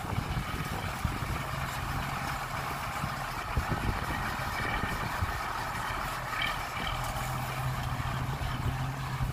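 Dump truck's diesel engine running steadily, a low even hum that grows a little stronger twice.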